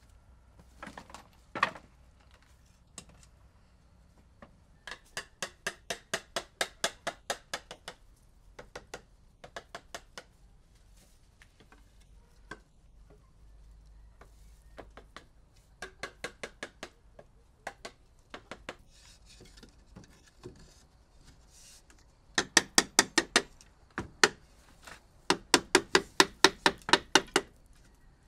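Bursts of rapid knocking on wood, about five strikes a second in runs of a few seconds, the loudest runs near the end, typical of a hand tool working timber.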